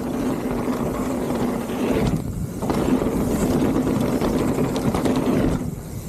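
Mountain bike rolling fast down a hardpacked dirt trail: knobby tyres rumbling and the bike rattling, with wind noise on the helmet camera and a steady low hum. The noise eases briefly twice, about two seconds in and near the end.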